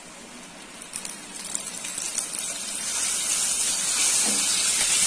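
Soaked chickpeas frying in hot refined oil in a kadhai, sizzling and spitting, with a few sharp crackles; the sizzle grows steadily louder from about a second in as the wet chickpeas heat up.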